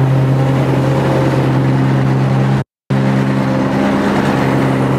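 The 22-horsepower carbureted Kawasaki engine of a Dixie Chopper Blackhawk zero-turn mower is running steadily at mowing throttle with the deck engaged, heard up close from the seat. The sound cuts out completely for a split second about halfway through, then carries on unchanged.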